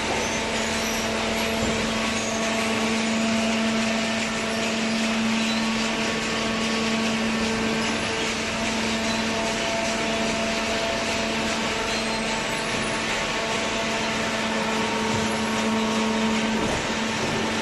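Horizontal hydraulic cardboard baler running: a steady motor-and-pump whine over an even hiss. The low hum cuts out about a second before the end.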